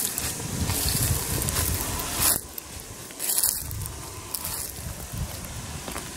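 Footsteps crunching through dry fallen leaves, about one a second, with a low rumble of wind and handling on the microphone; the steps stop about two and a half seconds in, leaving a quieter rustle.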